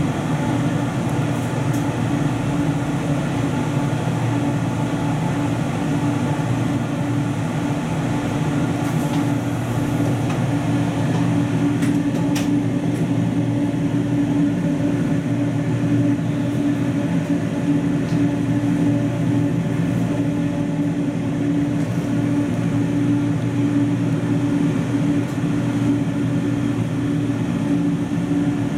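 JNR-era express-type electric train carriage giving off a steady hum with several held tones and a few faint clicks; the pitch does not rise or fall.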